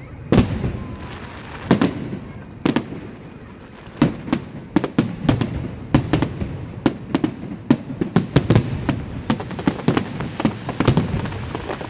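Aerial fireworks shells bursting with sharp bangs. A few come about a second apart, then from about four seconds in a fast run of bangs follows, several a second.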